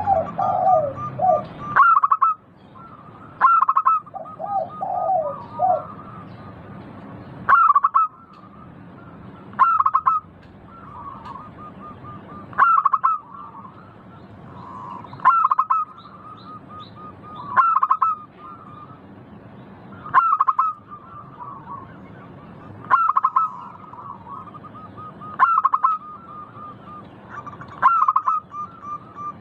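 Zebra dove (perkutut) singing its cooing song: a short, bright, high-pitched coo phrase repeated regularly, about every two and a half seconds. Softer, lower warbling calls are mixed in during the first few seconds.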